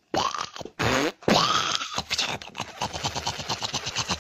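Glossy black rubbery covering squeaking as it is squeezed and rubbed against the foot: two drawn-out squeaks that rise and fall in pitch, then a fast creaking run of about nine pulses a second.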